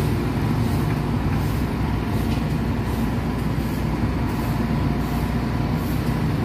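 Large truck's engine running steadily, a low even rumble with a faint steady whine above it.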